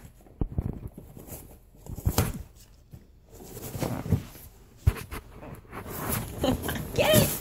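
Alaskan Malamute chewing and tearing a cardboard box: irregular scraping and crackling of cardboard, with dull knocks as the box shifts on the floor.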